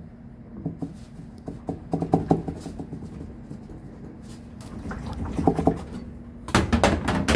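Irregular plastic knocks and rattles from a hand working the GE laundry center's washer basket and agitator, with the loudest quick run of knocks near the end.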